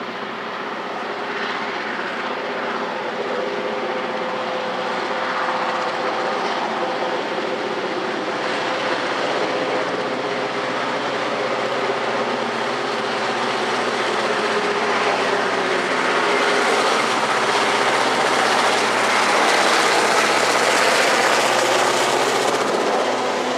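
Renfe class 319 diesel locomotive hauling a container freight train, its engine running with a steady drone that grows louder as it approaches and is loudest as it passes close by near the end.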